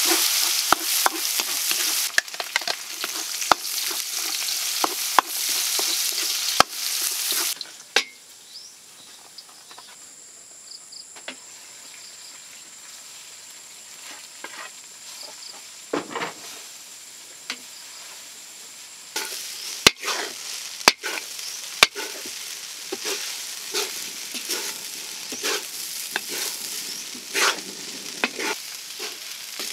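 Garlic and turmeric sizzling in a metal wok while a wooden spatula stirs and scrapes, with sharp knocks against the pan. The sizzle drops away at about eight seconds to a quieter stretch, then comes back at about nineteen seconds as turmeric fried rice is stir-fried, again with spatula knocks.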